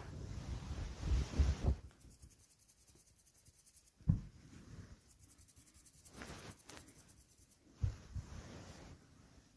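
A small kitten squirming on a shaggy rug: soft rustling and rubbing in bursts, with two dull thumps about four and eight seconds in.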